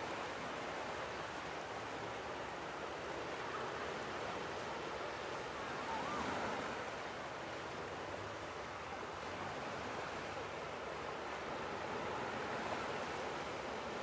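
Atlantic Ocean waves washing onto the beach: a steady surf hiss that swells a little about halfway through.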